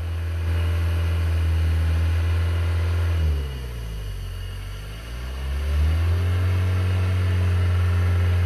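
Modified 1980s Toyota Land Cruiser Hardtop's engine running at steady high revs. About three seconds in, the revs fall away, then climb back up about two seconds later and hold steady again.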